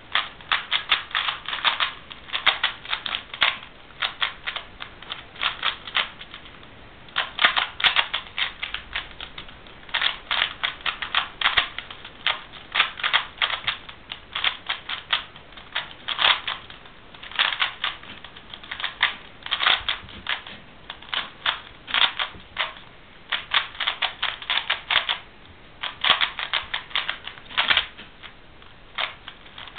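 Plastic 3x3 speed cube turned rapidly by hand during a timed solve: bursts of fast clacking layer turns with brief pauses between them. The cube turns a bit noisily.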